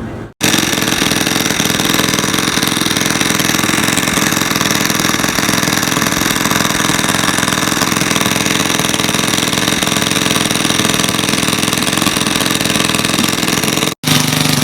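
Engine-driven water pump ('pumping machine') running steadily with a rapid, even pulse, sucking water out of a soakaway pit.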